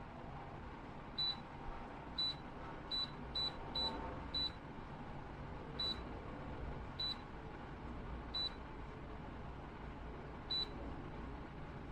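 About ten short, high single-pitch beeps at uneven intervals from a LEVOIT tower fan's control panel, the button-press beeps of its settings being changed, over a steady low hum.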